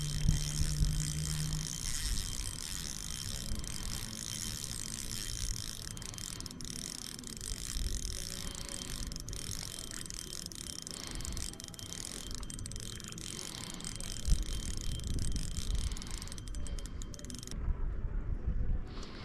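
Spinning reel being cranked, its gears ticking in a fast, even rattle as line is wound in on a squid jig; the cranking stops shortly before the end.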